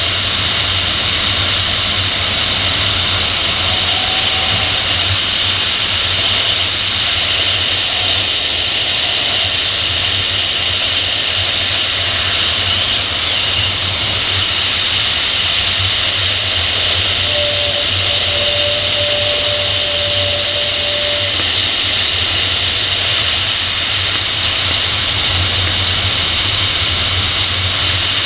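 Steady rushing of airflow over a camera mounted on the tail of a PIK-20 sailplane in gliding flight: a high hiss over a low rumble. A faint steady tone sounds for a few seconds past the middle.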